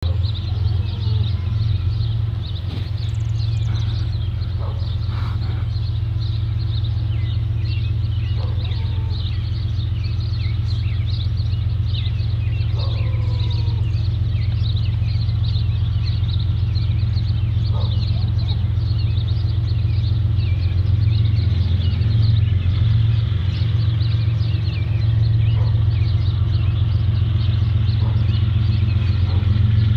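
A large engine running with a steady low drone that slowly grows louder, with birds chirping and calling over it.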